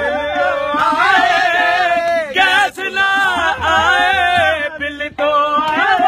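Men singing long, drawn-out, wavering notes of a folk-style song, accompanied by a hand drum and a harmonium.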